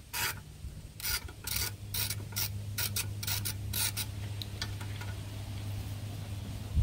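Ratchet wrench clicking in short strokes, about two a second, backing out the bolt that holds the oil fill tube on a small lawnmower engine; the ratcheting stops about four seconds in.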